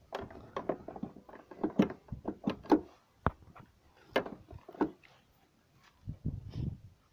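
Irregular clicks and knocks of hands working at a hatchback's tailgate handle and latch, loudest about two and three seconds in, followed by a few low dull thumps near the end.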